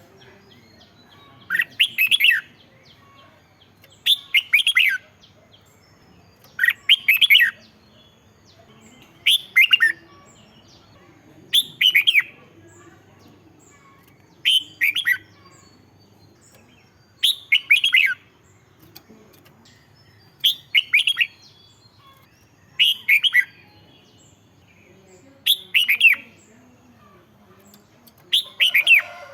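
Red-whiskered bulbul singing: a short, quick phrase of several clear notes repeated about every two and a half seconds, some eleven times.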